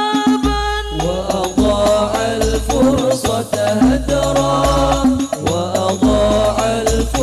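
Sholawat Al-Banjari music: a man singing an Arabic devotional song into a microphone over a group of terbang frame drums played in a steady rhythm, with deep drum notes sounding in blocks of about a second.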